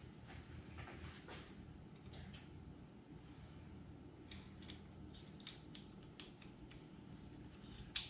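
Faint clicks and light scraping of small steel parts being handled and fitted into the receiver of a Browning BAR Mark III rifle during reassembly, with a sharper click near the end.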